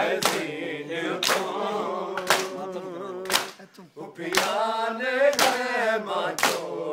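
Men's voices chanting a Punjabi noha together, held and drawn out, with a steady chest-beating (matam) of many hands striking at once about once a second. The chanting drops away briefly a little past halfway while the strikes keep their beat.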